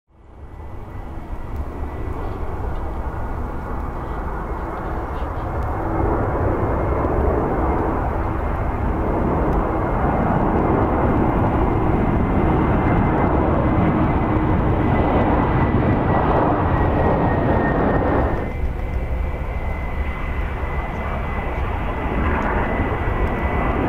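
Jet noise from an Airbus A321-231's two IAE V2500 turbofans on final approach: a steady rumble with a held high whine. It fades in at the start and grows louder about six seconds in. Near the end it cuts abruptly to a different, lower jet noise from airliners on the runway.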